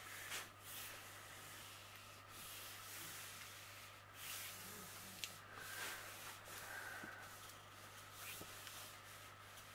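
Faint rustling and rubbing of palms smoothing the plastic-coated cover paper flat over a diamond painting canvas's adhesive, with a few small clicks. A steady low hum sits underneath.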